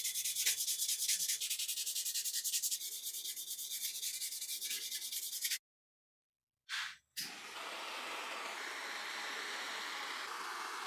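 Rapid, even back-and-forth sanding or scrubbing strokes on the rusted toy car's body, several strokes a second, stopping about five and a half seconds in. After a brief pause comes a steady, even hissing noise.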